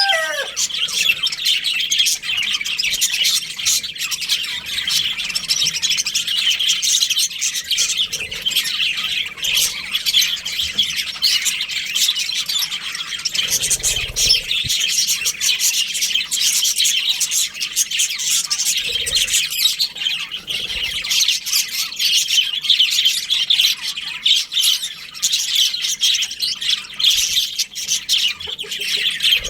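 A colony of budgerigars chirping and chattering continuously, many birds calling at once.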